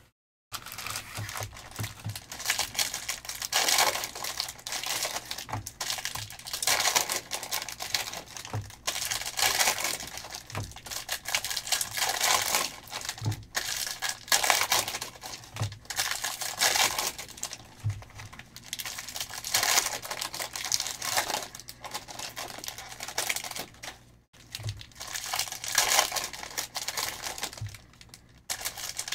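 Foil trading-card pack wrappers crinkling and tearing as packs are opened by hand, in repeated bursts every second or two.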